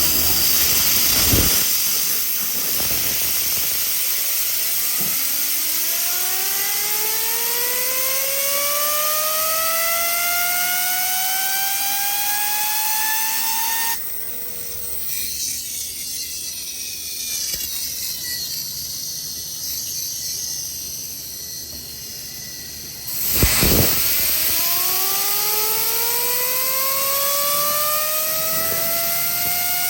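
RCS150 engine revved, giving a whine that climbs slowly in pitch for about twelve seconds, cuts off suddenly, then climbs again after a sharp burst near the end. The run is a test for abnormal crankshaft-bearing noise.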